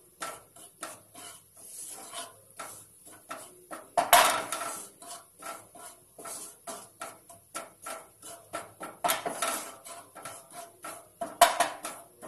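Spoon scraping round a frying pan, stirring roasting cumin powder in quick repeated strokes of about three a second, with a few louder scrapes about four seconds in and near the end.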